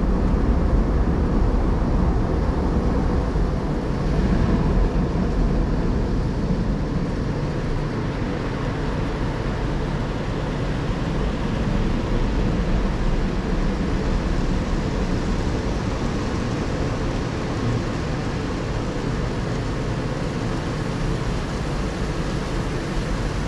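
Automatic tunnel car wash in its rinse stage, heard from inside the car's cabin: water spraying over the car body and the wash equipment running make a steady rushing noise, a little louder in the first few seconds.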